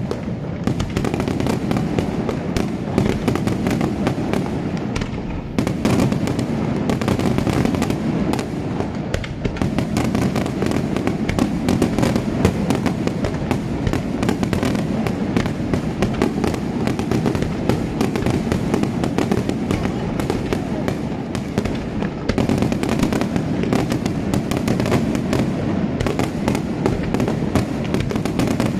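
Daytime aerial fireworks going off in a dense, continuous barrage of rapid bangs and crackling reports with no pauses.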